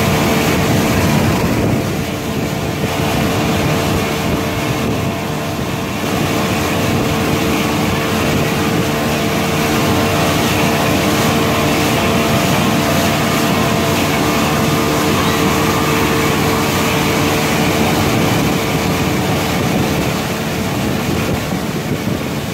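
A boat's outboard motor running steadily at speed while towing a tube rider, with a constant engine hum over a rushing wash of wind and water.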